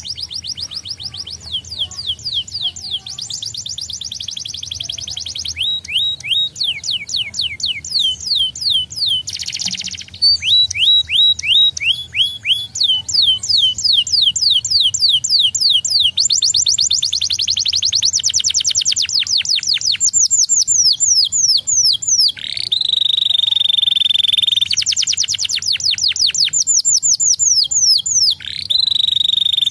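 Domestic canary singing a long song of fast trills: rows of rapid repeated downward-sweeping notes, switching to a new note type every few seconds, with two long held whistles in the last third.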